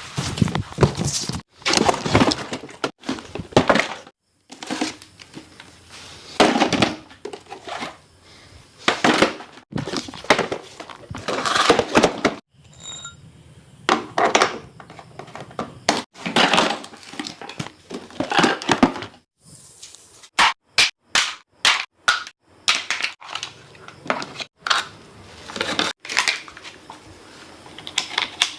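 Unboxing a toy bike: irregular knocks, clicks and rustling of packaging and plastic parts being handled, with a quick run of sharp clicks partway through.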